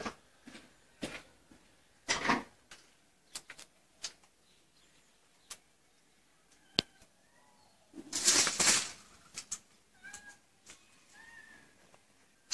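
An animal's short high cries a few times, among scattered sharp knocks and scrapes on broken concrete rubble, with a loud scraping crunch about eight seconds in.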